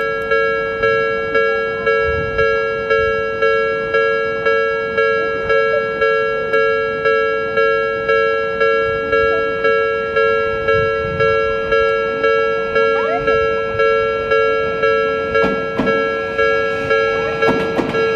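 Japanese railway level-crossing warning bell ringing steadily in two pitches, about one and a half strikes a second, each strike fading before the next. An approaching train's rumble and rail clatter begin to build near the end.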